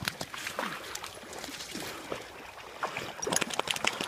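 Lake water splashing and sloshing, with a run of sharper, louder splashes about three seconds in.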